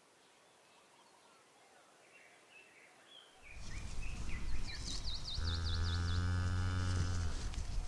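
Faint bird chirps, then about three and a half seconds in a low rumbling outdoor noise sets in and a cow lows once, a long even moo of about two seconds, while a bird trills high above it.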